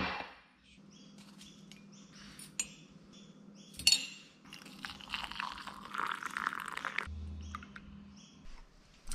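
Ceramic mugs clinking on a stone countertop with a few sharp knocks of the mugs and a teaspoon, then hot water poured into the mugs for about two seconds, followed by a shorter, quieter pour of milk near the end.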